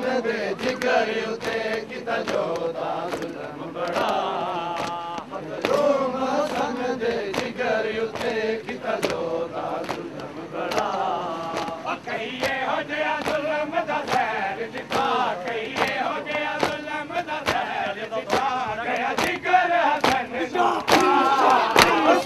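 Crowd of male mourners chanting a noha, a mourning lament, together, with many irregular sharp slaps from chest-beating (matam) throughout.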